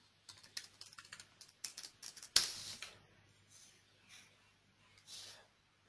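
Computer keyboard keys tapped in a quick run as a password is typed, then one louder key or button hit about two and a half seconds in, followed by a few faint taps.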